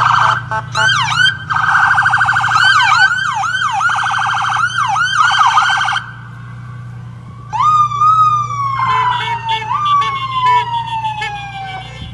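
Police car sirens: electronic sirens sweeping rapidly up and down in quick yelps and a fast warble for about six seconds, then after a brief lull a siren rises sharply and slowly falls in pitch, twice, with quick repeated chirps over it.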